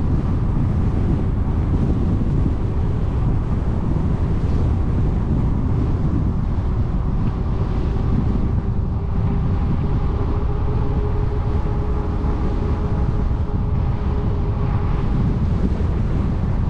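Wind buffeting the microphone of a moving e-bike: a steady low rumble with a faint, even hum underneath.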